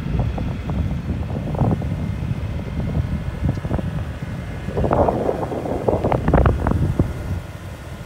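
Wind buffeting a phone microphone, a ragged low rumble with crackling gusts that are strongest about five to seven seconds in.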